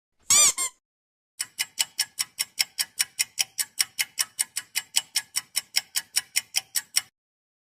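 A short pitched sound effect with a quick up-and-down bend, then a clock-ticking sound effect of even, sharp ticks at about five a second for nearly six seconds.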